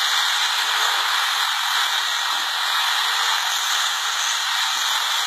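Helicopter turbine and rotor running on the ground, heard as a loud, steady rushing hiss with no low end.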